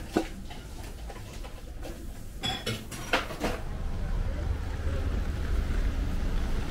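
Ceramic dishes clinking on a wooden table, two sharp knocks at the start and a few ringing clinks near the middle, with faint voices behind. About four seconds in it gives way to a steady low rumble of street traffic.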